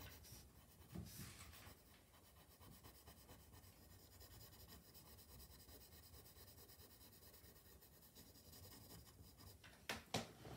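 Coloured pencil scratching faintly on paper as fine strokes are drawn. Two short taps near the end.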